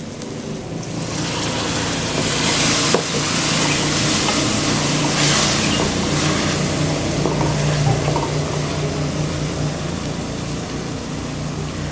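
Tomato-and-spice masala sizzling in hot oil in a steel kadai just after a splash of water, while it is stirred with a wooden spatula. The sizzle swells about a second in and flares twice more, over a steady low hum.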